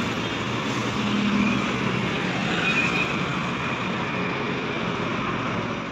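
Steady road traffic: motorcycles and vehicles going past with tyre and engine noise, and the low engine hum of a Scania coach drawing away.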